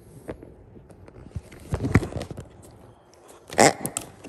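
Pink latex pig squeeze toy letting out a loud grunting noise twice as it is pressed and bitten, about two seconds in and again near the end, with a dog's claws clicking on a hardwood floor.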